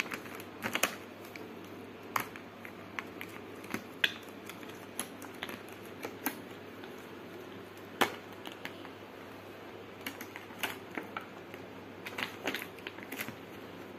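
Irregular clicks and crinkles from handling a plastic Ben 10 toy watch and its clear plastic bag, with one sharp click about eight seconds in.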